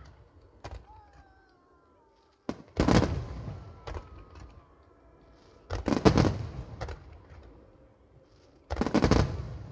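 Large aerial firework shells bursting overhead: a small bang near the start, then three heavy booms about three seconds apart, each trailing off in rumble and crackle.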